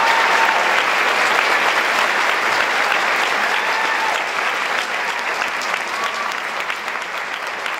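Theatre audience applauding, the dense clapping slowly dying down.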